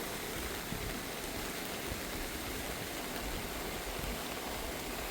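Swollen river water rushing steadily after heavy rain.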